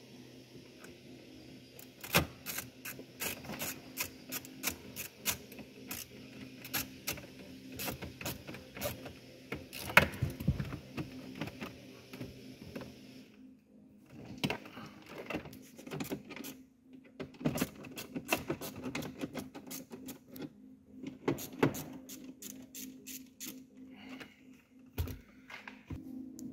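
Irregular clicks and knocks from hands working wiring and plastic trim under a car's dashboard, several clicks a second in bursts, with a short lull about halfway through.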